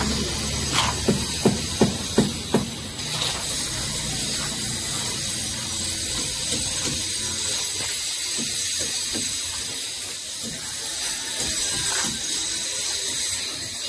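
A steel shovel scraping and striking through wet concrete mix, several sharp strokes in the first three seconds, followed by a steady hiss with faint scraping as concrete is spread over PVC conduit in a trench.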